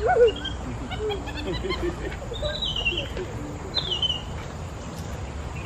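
A busy run of short, high chirping calls, with two descending whistled calls about two and a half and four seconds in.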